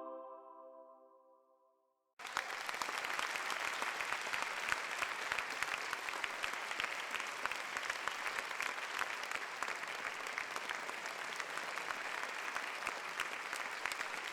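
Applause sound effect: a crowd clapping steadily for about twelve seconds, starting suddenly after a short silence and cutting off abruptly. Before it, the tail of a sung choir chord fades out within the first second.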